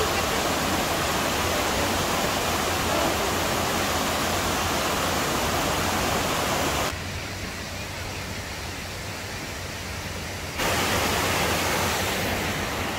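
Steady rushing of water from a rock cascade, several small waterfalls spilling over stone steps into a pond. The rush drops noticeably quieter for about three and a half seconds past the middle, then comes back.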